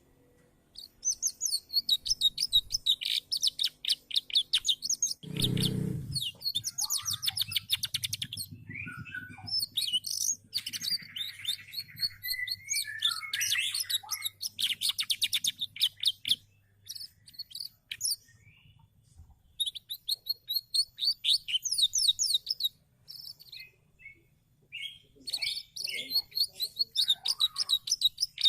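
Domestic canary singing: long phrases of rapid, high trills and chirps, broken by short pauses. There is a brief low thump about five seconds in.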